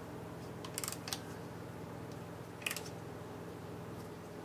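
A few small, sharp clicks and taps, three or so, over a steady low hum.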